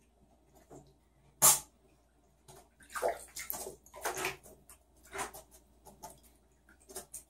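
Shallow water in a bathtub splashing and sloshing in irregular bursts as a young raccoon paws and moves about in it. The loudest splash comes about a second and a half in, with a run of splashes a couple of seconds later.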